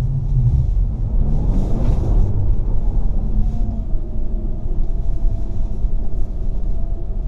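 Mercedes CLA 250 4Matic's 2.0-litre turbocharged four-cylinder driving in snow, with a steady low rumble of engine and tyres. The engine note sweeps up about a second in, then holds a steady tone.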